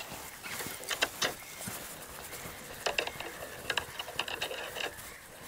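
Fishing reel being cranked in short spells, its gears clicking, as a crucian carp is wound in on a float rod.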